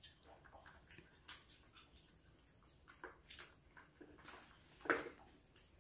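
Faint scattered small clicks and rustles as a baby monkey eats and shifts about on a plastic stool, with one louder brief sound about five seconds in.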